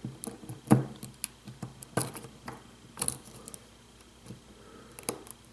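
Irregular small metallic clicks and taps of a hook pick and tension wrench working the pin stack of a lock being picked, several sharper clicks among fainter ticks.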